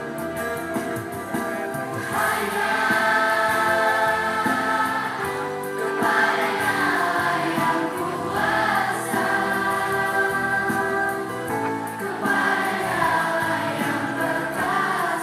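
A group of children singing together over instrumental backing music; the voices come in about two seconds in and carry on over the accompaniment.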